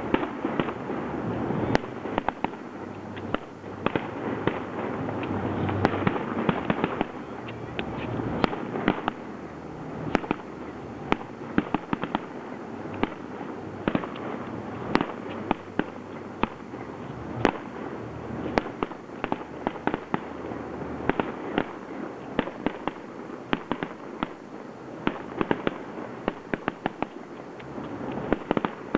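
Aerial fireworks bursting in rapid succession: many sharp bangs a second over a continuous crackle, with no let-up.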